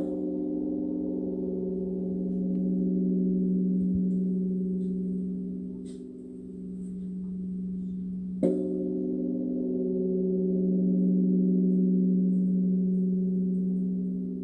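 Korean Buddhist temple bell (beomjong), a large bronze bell struck with a wooden log, ringing with a deep hum that slowly swells and fades. It is struck at the very start and again about eight and a half seconds in.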